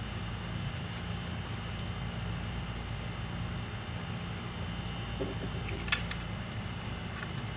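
Steady low mechanical hum of workshop background, with a single sharp click about six seconds in and a few faint ticks near the end.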